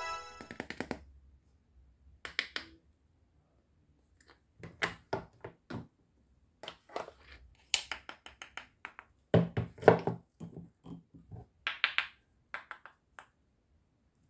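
Hands handling plastic toy kitchen pieces: scattered light clicks and knocks, with a louder cluster of taps as a toy knife cuts a play-food pineapple in two.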